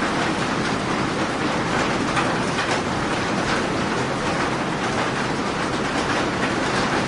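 Steady rain, an even hiss with faint scattered taps.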